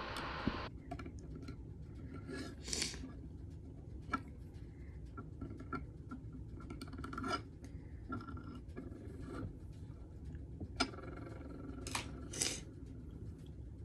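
Faint handling sounds of a small rhinestone-edged metal tray charm on a tabletop: short rubbing and scraping as a paintbrush works around the charm's edge, with scattered light taps and clicks. A steady hiss cuts off suddenly less than a second in.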